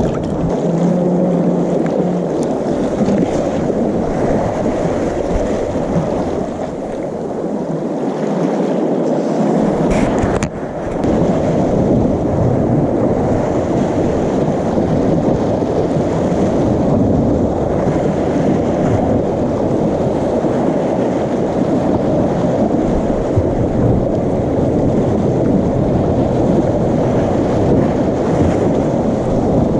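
Sea surf washing steadily against breakwater rocks, with wind rumbling on the microphone. There is a brief dip and a click about ten seconds in.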